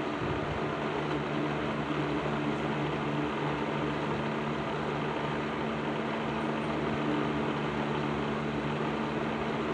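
Patton 12-inch box fan with its black Fasco motor running steadily: an even rush of air over a low motor hum. Freshly serviced, it is running smoothly.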